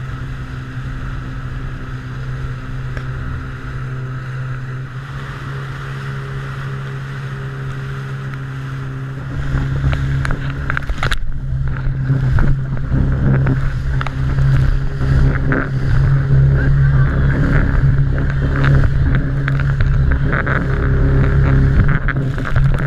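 Jet ski engine running steadily at speed, with water rushing past. About ten seconds in it gets louder and rougher, with hull slaps and splashing as the craft rides through breaking waves.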